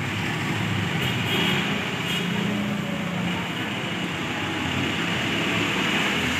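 Steady street traffic noise from jeepneys, cars and motorcycles running on the road below.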